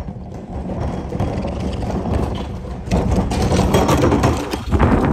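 Plastic wheels of a garbage cart rolling over cracked concrete, a continuous rattling noise that grows louder about three seconds in and stops abruptly at the end.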